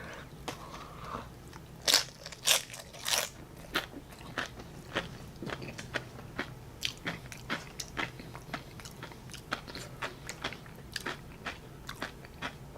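A person biting into and chewing loaded nachos, the tortilla chips crunching. The loudest, sharpest crunches come about two to three seconds in, then steadier, smaller crunching as they chew.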